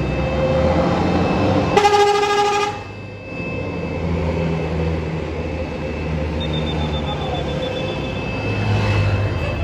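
A bus's telolet horn sounds one short, loud note about two seconds in, over the steady rumble of a bus engine running.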